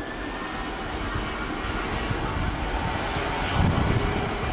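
Boeing 737-800 jet engines running with a steady whine and rush as the airliner rolls along the runway, growing a little louder. A low rumble swells briefly near the end.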